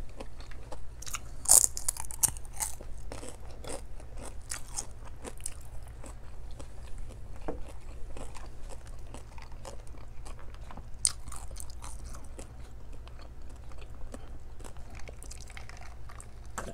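Close-miked chewing and mouth sounds of a person eating by hand: irregular wet clicks and crackles, sharpest about a second and a half in. A steady low hum runs underneath.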